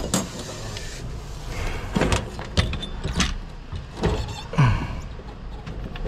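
Metal hand tools and fittings clinking and knocking as a high-pressure washer pump and its gearbox are worked on, a handful of separate clanks over a low steady hum.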